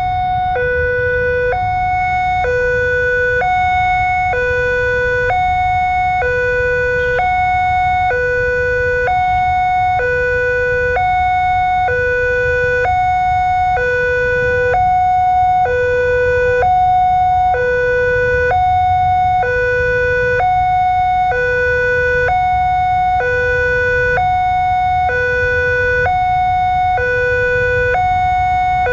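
Railway level-crossing warning alarm sounding while the crossing is closed: an electronic two-tone hi-lo alarm, like an ambulance siren, each tone lasting about half a second. It runs over a low rumble of idling traffic.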